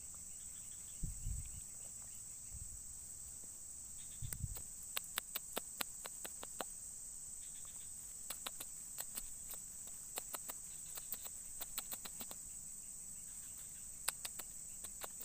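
Insects trilling in a steady high-pitched drone, with many scattered faint sharp clicks and two brief low thumps.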